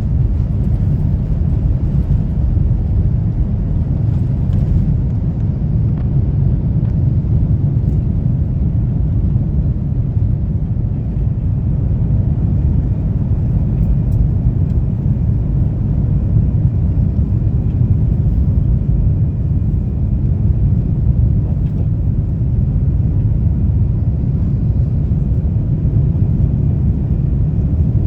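Airbus A350-900 cabin noise heard from an economy seat: a steady, deep rumble of the Rolls-Royce Trent XWB engines and airflow, with a faint high whine joining about a third of the way in.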